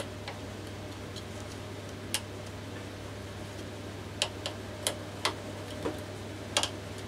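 Sharp clicks and taps from a homemade wooden knife-sharpening jig being handled at its clamp and carriage, coming irregularly, about eight of them, most in the second half, over a steady low hum.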